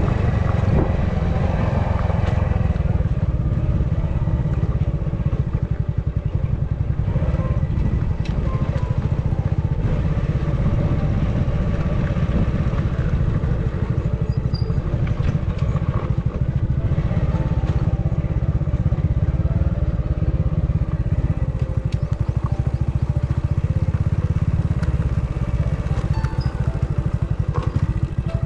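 Hero Splendor motorcycle's single-cylinder four-stroke engine running steadily as it is ridden over a rough off-road track, with a few short knocks and rattles.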